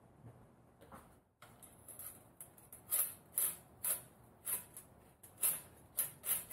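Shop towel rubbed along a transmission dipstick in quick swishing strokes, about two a second, after a quiet opening second.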